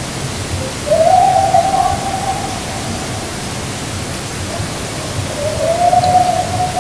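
Two long, drawn-out howl-like calls held at one pitch, the first lasting about two seconds, the second starting near the end, over a steady loud hiss.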